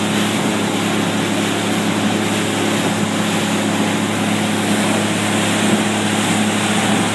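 Yamaha 225 outboard motor running steadily with the boat under way, a constant engine hum over the rush of water from the wake.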